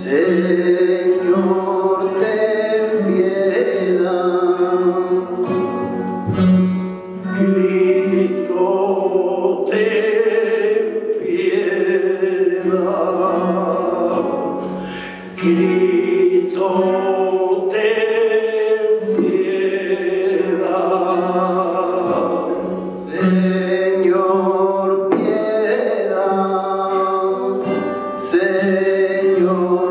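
Flamenco cante sung over guitar accompaniment, the voice holding long, bending notes through several phrases.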